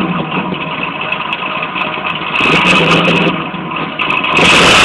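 Chevrolet Camaro Z28's V8 engine idling, revved twice: about two and a half seconds in and again near the end.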